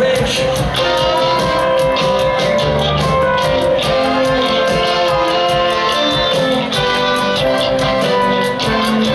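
Live rock band playing an instrumental passage over a steady drum beat: electric guitar, drums and pedal steel guitar, with a string and horn section of cello, violin, trombone, trumpet and saxophone, heard from the audience.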